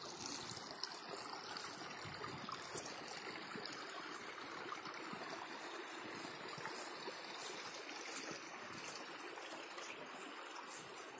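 Water trickling steadily, a small stream of water running into a pond.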